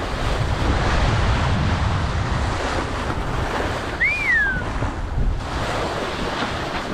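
Wind buffeting the microphone over the rush of choppy sea water around a sailboat under sail. About four seconds in, a single short whistle rises and then drops in pitch.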